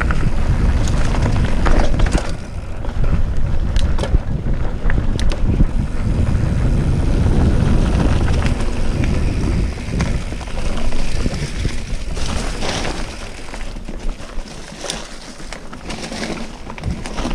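Vitus Sentier hardtail mountain bike descending a dirt trail: heavy wind buffeting on the strap-mounted action camera's microphone over tyre noise on dirt, with scattered knocks and rattles as the bike hits bumps. The rumble eases off over the last few seconds as the bike slows.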